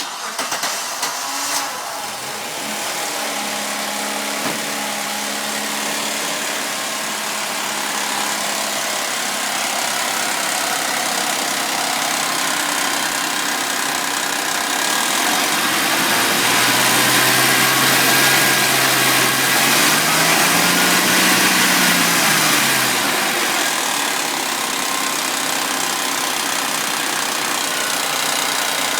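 Suzuki Vitara V6 engine running warm, with a steady noise from its timing chains and tensioners, which the owner takes for worn chains and tensioners. The engine note rises and falls briefly about twenty seconds in.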